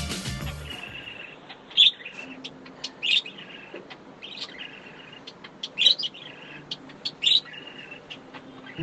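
Small birds chirping in short, high calls scattered throughout, with a few louder chirps standing out.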